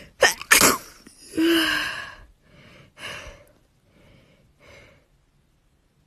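A young woman sneezing: two sharp sneezes in quick succession, then a longer third one, followed by a few softer breaths.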